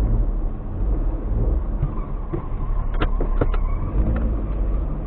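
Suzuki Alto 800's small three-cylinder engine and road noise heard from inside the cabin while driving: a steady low rumble, with a few short clicks about three seconds in.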